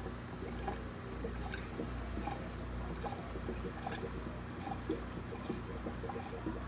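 Aquarium water trickling and splashing steadily from a filter's outflow, over a low steady hum, with faint small irregular ticks.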